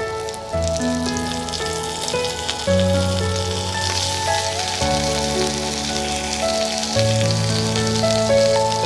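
Background music of slow held notes that change every second or two, over the sizzle of stuffed bitter gourds frying in a kadhai.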